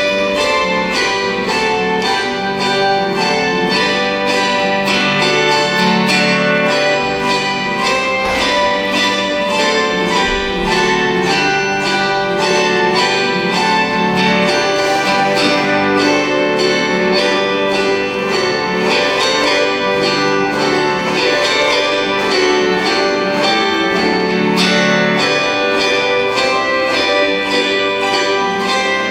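An ensemble of autoharps playing a hymn, strumming chords in a steady, even rhythm of plucked strokes over sustained ringing strings.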